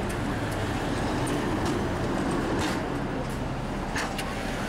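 Vintage electric tram passing close by on street track: a steady low hum and rumble from the car running on the rails, with a few light clicks.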